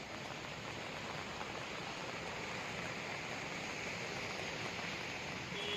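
Steady, even rush of flowing floodwater.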